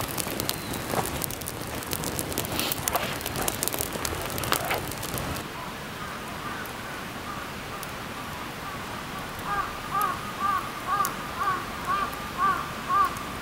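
Wood campfire crackling and popping with sharp snaps. About five and a half seconds in the crackle stops, and a repeated animal call takes over: short rising-and-falling notes, about two a second, getting louder near the end.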